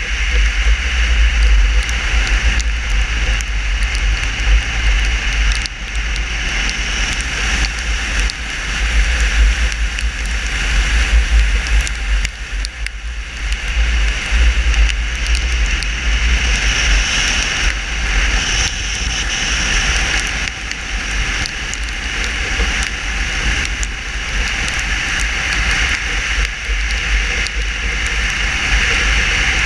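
Wind buffeting hard on the camera microphone of a moving motorcycle, with steady tyre hiss from the wet road surface under it. It dips briefly about halfway through, then comes back up.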